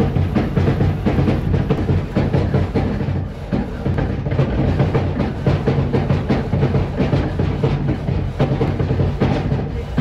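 Earthquake simulator platform running: a loud, continuous deep rumble with irregular rattling knocks.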